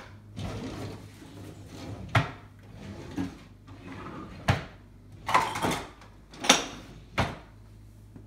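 Wooden kitchen drawers being pulled open and pushed shut one after another, with about five sharp knocks and softer sliding noise between them.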